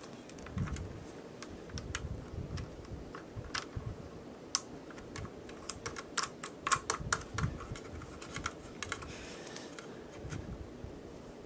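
Scattered small plastic clicks and taps from a football visor's quick-release clip being lined up and tightened on a helmet face mask, with a quicker run of clicks about midway through.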